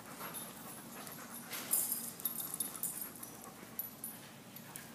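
Several big dogs moving about on a hard floor: scattered clicks of claws and ticks, the loudest about two seconds in, with a dog panting.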